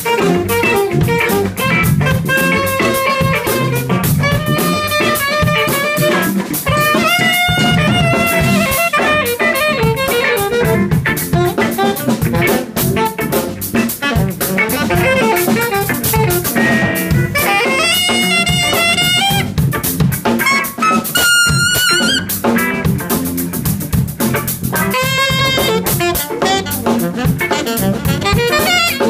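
Live improvised jazz from a saxophone, electric guitar, bass and drum kit. The saxophone plays a solo in wavering phrases with short gaps, over busy drumming.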